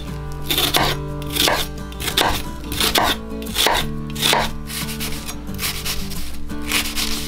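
Chef's knife slicing through a half onion onto a wooden cutting board, a steady run of crisp cuts about three every two seconds, easing off after about four seconds with a few more near the end.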